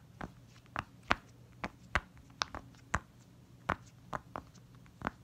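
Silicone pop-it fidget toy, a web-shaped one, having its bubbles pressed in on the 'quiet side': a string of sharp pops at an uneven pace, about two or three a second.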